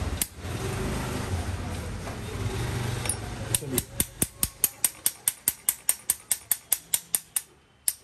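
Quick, light metal-on-metal taps, about three a second, starting about halfway through, as the Honda City car lock is struck to loosen a tightly stuck pin that is being drawn out with a wire.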